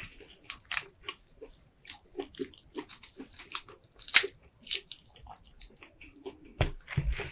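Close-miked eating of a seafood boil: wet chewing, smacking and biting, a steady run of short sharp clicks. The sharpest bite comes about four seconds in, and heavier knocks follow near the end.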